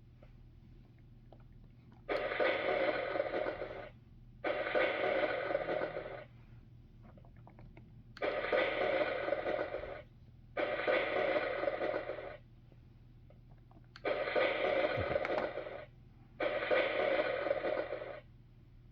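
Electronic sound effects from a Fisher-Price Great Adventures Magic Castle playset, played through its small built-in speaker when the Wizard figure is set in place: six short clips of about two seconds each, separated by short pauses.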